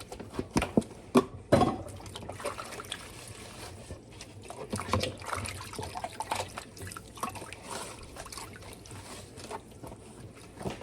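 Liquid trickling and sloshing, with several sharp knocks in the first two seconds and irregular clatter after.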